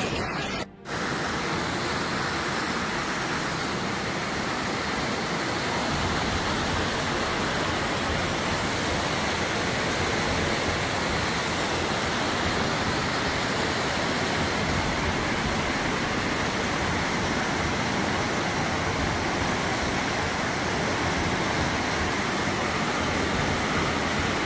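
Floodwater rushing in a swollen river: a loud, steady, unbroken noise of turbulent water, after a brief break about a second in.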